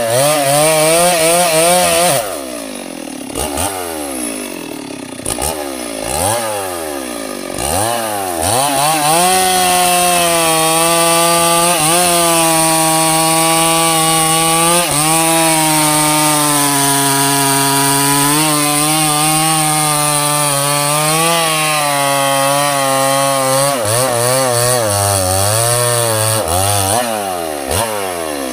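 Stihl MS 382 two-stroke chainsaw blipping its throttle up and down, then held at steady high revs while cutting a sengon log, the pitch sagging a little now and then under load. Near the end it goes back to revving up and down.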